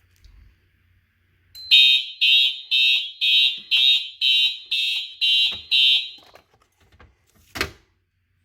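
Fire alarm horn sounding a loud, high-pitched electronic tone in pulses about twice a second, nine pulses in all, then stopping: the system in alarm after a magnet test of a detector. A single sharp click follows near the end.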